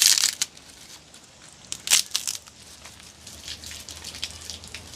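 Newly lit wood fire crackling as it catches: a sharp snap at the start and another about two seconds in, then a run of small fast pops.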